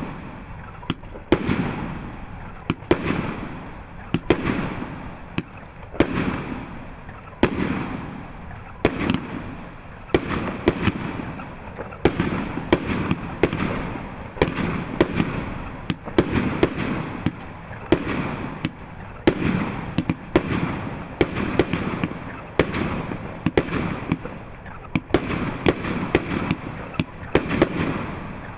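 A 36-shot 30 mm consumer fireworks cake firing shot after shot, a steady string of sharp reports about one a second, each shot launching with a tail and breaking into a peony.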